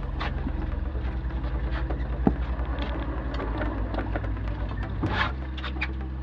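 Twin outboard motors running slowly at trolling speed, a steady low drone whose note shifts slightly about a second in and again near five seconds. Scattered clicks and knocks from fishing gear and the deck sit on top.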